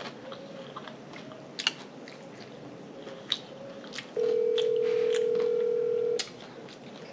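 Mouth sounds of chewing food, smacking clicks. Then a phone's ringback tone sounds once, a steady two-second ring, while an outgoing call waits to be answered.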